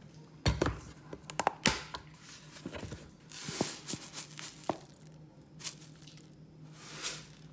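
Light kitchen handling sounds: scattered clicks and soft knocks, with a short rustling hiss about three seconds in and another near the end.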